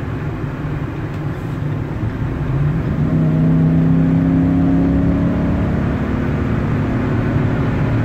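Ford F-250 Super Duty's gas V8 heard from inside the cab under wide-open-throttle acceleration, with road and engine rumble. About three seconds in, the engine note gets louder and strongly pitched as the revs climb past 4,000 rpm. It pulls cleanly with no misfire after the misfire monitor neutral profile correction.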